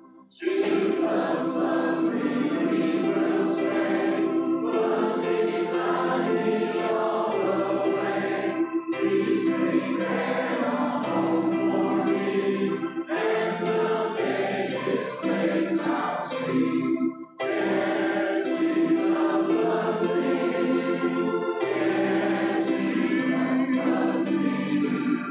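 Church congregation singing a hymn together, in phrases of about four seconds with short breaks between them.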